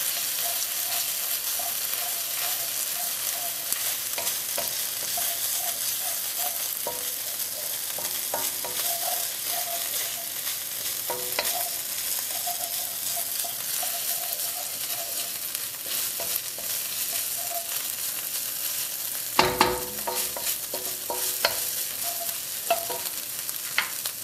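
Diced onion, red pepper, garlic and ginger sizzling in hot oil in a pan while being stirred, the utensil lightly scraping and clicking against the pan. About twenty seconds in there is a short cluster of louder knocks, with a few more single knocks near the end.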